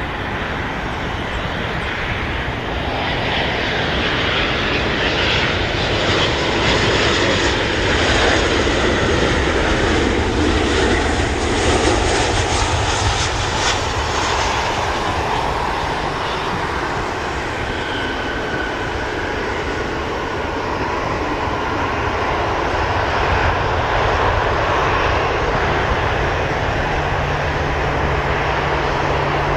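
Boeing 737-800 airliner landing, its CFM56-7B jet engines running throughout. The jet noise builds as the plane comes in low and is loudest for several seconds up to touchdown. It then carries on steadily through the rollout, rising again slightly near the end.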